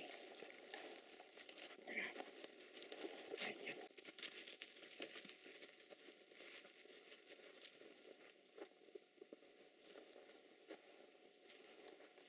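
Irregular rustling and crackling of dry leaf litter and twigs underfoot, fairly busy in the first few seconds and then fainter and sparser.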